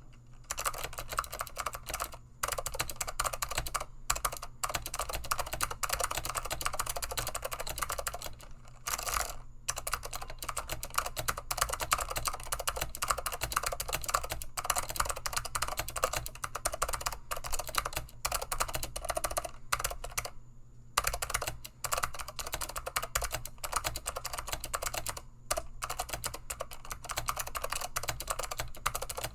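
Fast continuous typing on a vintage DeltaGold Advanced keyboard with blue Alps switches, a dense run of crisp key clicks broken by a few short pauses.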